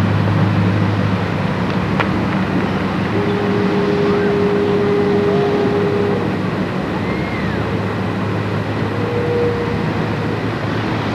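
Steady low rumble and hum of engines or traffic over a noisy background. A steady tone is held for about three seconds in the middle, with a short rising-and-falling whistle after it and a shorter tone near the end.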